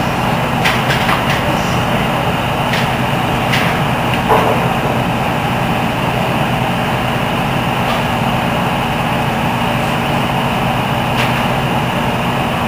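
Diesel power pack of a self-propelled modular transporter running at a constant speed, a steady low drone, with a few short clicks and knocks.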